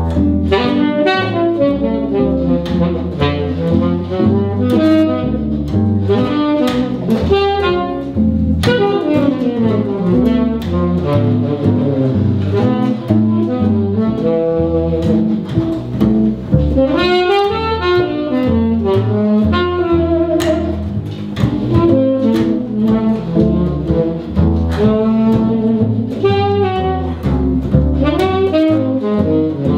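Small swing jazz combo playing an instrumental break: a saxophone carries the melody over hollow-body electric guitar and upright bass.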